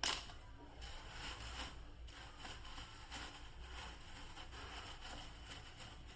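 Faint handling noise: a sharp click at the start, then scattered soft clicks and rustles over a low steady hum.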